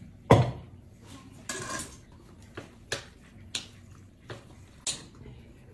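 Chopsticks and ceramic plates and bowls clinking and knocking as food is served at a dinner table: a series of separate sharp clicks, the loudest about a third of a second in.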